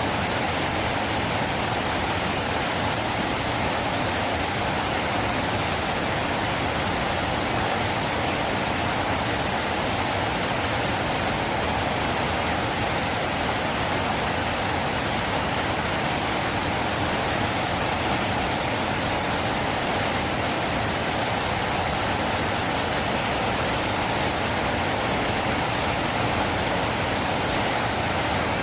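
River water flowing in a steady, even rush with no breaks or separate splashes.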